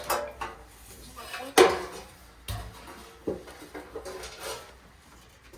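Clanks, knocks and scrapes of steel panels, replacement MGB sills among them, being shifted and pulled out of a stack, with one loud clank about a second and a half in.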